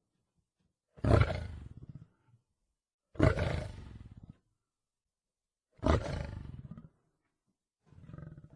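Lion roaring in a repeated series: four deep, rough calls about two seconds apart, each starting loud and fading over about a second, the last one fainter.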